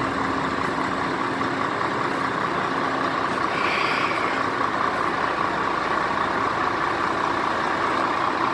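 Heavy truck's diesel engine running steadily, with a brief higher hiss about three and a half seconds in.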